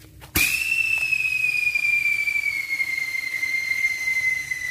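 Iyakin ('crybaby') whistling firecracker going off: it starts suddenly about half a second in and gives one long, loud, shrill whistle that sinks slowly in pitch.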